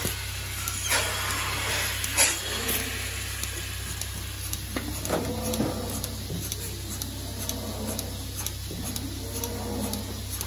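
Milking machine: a steady hum of the vacuum system, with two short hisses of air as the teat cups of a milking cluster are put on and suck onto a cow's teats, about one and two seconds in. Lighter clicks and rattles of the cluster's hoses and fittings follow.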